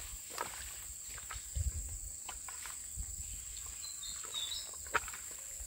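Rural outdoor ambience: a steady high-pitched insect drone with scattered faint clicks and rustles, a brief bird chirp about four seconds in, and a short low rumble near the two-second mark.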